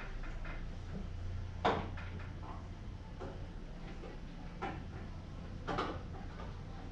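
A few light knocks and rattles of a plastic car bumper cover being handled and set down on the floor, the loudest about a second and a half in, over a steady low hum.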